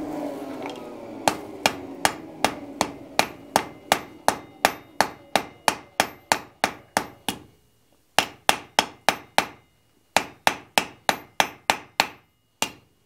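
Light, quick hand-hammer blows on red-hot wrought iron on the anvil face, about three a second in short runs with brief pauses, each with a faint ring from the anvil. The blows are drawing out the tip of a forge-welded bundle of four bars. A short steady rush comes before the first blow.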